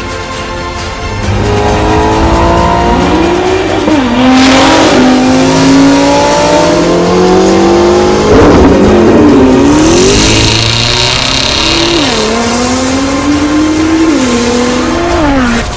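Supercar engines with aftermarket valved exhausts accelerating hard: the revs climb and drop back with each upshift, several times near the end. A car passes by about halfway through. Steady background music is heard alone for the first second or so.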